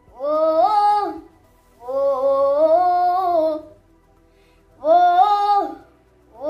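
A boy singing solo without accompaniment, in long held phrases of a slow melody with short pauses between them. The second phrase is the longest, and a new phrase begins right at the end.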